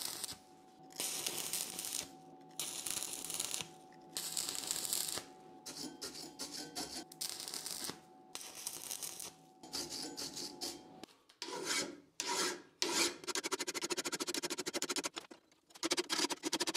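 Arc welding over a crack in a bent steel bracket: several crackling bursts of about a second each, with short pauses between, over a steady hum. About eleven seconds in it changes to quick, even strokes of a hand file rasping down the steel weld, sped up.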